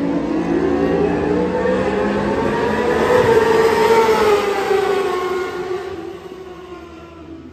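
Racing superbikes at full throttle passing along the main straight. The engine note climbs and grows louder to a peak about halfway through, then drops in pitch and fades as they go by.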